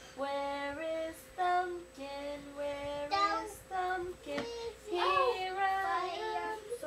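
A young boy singing unaccompanied in a child's voice: a string of held notes that step up and down, in short phrases with brief breaks between them.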